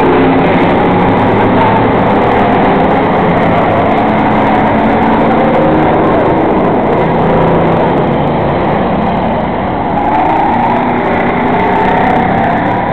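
Several enduro race cars' engines running at speed around an asphalt oval. The engines overlap in a continuous, loud sound whose pitch rises and falls as cars pass.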